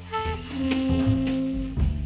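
Live jazz quintet playing: alto and tenor saxophones sounding held notes together over upright bass, piano and drums, with a few sharp drum and cymbal hits.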